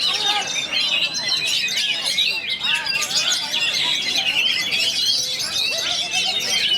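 Many oriental magpie-robins singing at once in a dense, unbroken tangle of quick whistled phrases and chirps, as in a songbird contest round.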